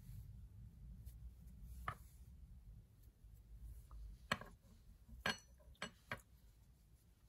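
Metal Tunisian crochet hook handled as stitches are worked off it: a few faint, sharp clicks and taps, most of them in the second half, over a low room hum.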